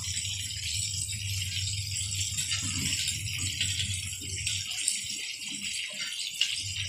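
Chicken pieces deep-frying in a wok of hot oil, the oil sizzling and crackling steadily, with a couple of light clicks of metal tongs against the wok in the second half.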